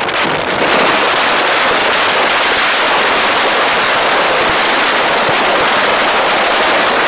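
Strong hurricane wind blowing across a cellphone microphone: a loud, steady rush of noise that jumps up about a second in and stays there.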